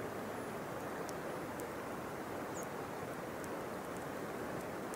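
Outdoor ambience: a steady rushing noise with a few faint, scattered high ticks and two brief high chirps.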